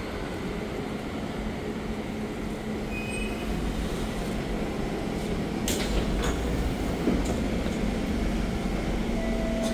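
SMRT C651 metro train running into the platform and stopping, with a steady rumble and a low hum. About six seconds in come two sharp clacks as the train and platform screen doors open.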